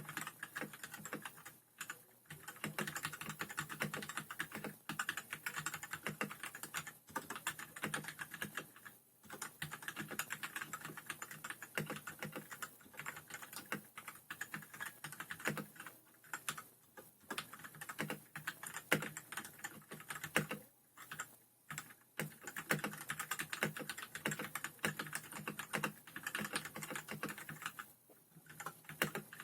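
Typing on a Royal Kludge RK100 mechanical keyboard with linear red switches: a fast, continuous run of keystrokes, broken by short pauses about two, nine, twenty and twenty-eight seconds in.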